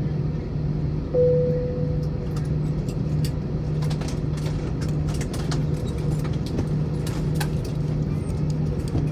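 Airbus A321 cabin noise as the jet reaches the gate: a steady hum from the engines and air system that pulses low. About a second in a single cabin chime sounds and fades, followed by scattered clicks in the cabin.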